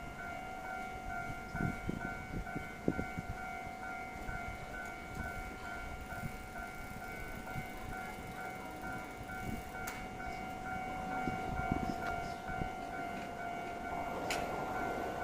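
Japanese level-crossing warning bell ringing in a steady repeating pattern as a Toden Arakawa Line 7700-series tram approaches the crossing, its running noise growing over the last few seconds.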